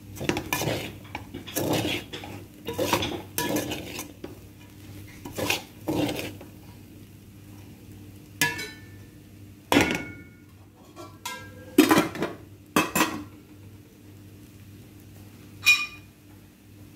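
Metal spoon stirring and scraping rice around a metal pot: a run of repeated scrapes, then several sharp metal-on-metal clinks that ring briefly.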